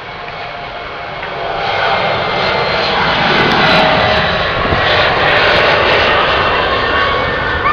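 Embraer E170 jet airliner's twin turbofan engines at takeoff power, a loud, steady jet noise with a few whining tones that grows sharply louder about a second and a half in.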